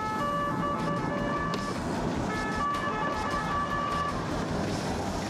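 Police car siren sounding in quick stepped changes of pitch, in two stretches with a short break about two seconds in, over steady road and engine noise.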